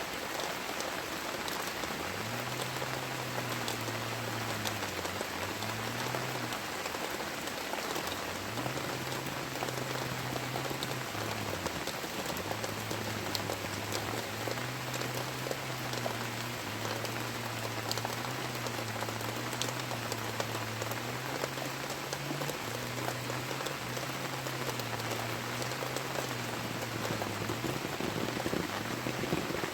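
Heavy tropical rain falling steadily, with many sharp individual drop hits. A low droning hum that wavers and steps in pitch runs underneath from about two seconds in.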